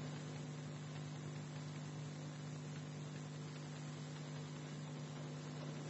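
Steady low electrical hum with a faint even hiss, unchanging throughout; no other sound.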